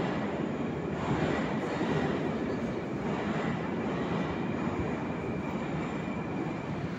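Moscow Metro train approaching the platform through the tunnel: a steady noise of wheels on rails, with a faint high whine through the first part.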